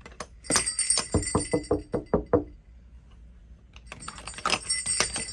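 Light metal jingling over a quick run of soft thumps, about five a second for the first two and a half seconds. After a short lull the jingling starts again near the end.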